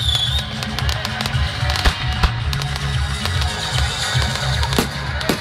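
Fireworks going off over music with a steady pulsing bass beat: a falling whistle that ends about half a second in, then several sharp bangs around two seconds in and again near the end.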